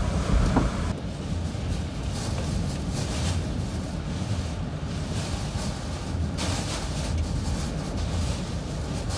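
Hurricane wind and driving rain buffeting a vehicle, heard from inside it: a steady low rumble with two stronger gusts of hiss.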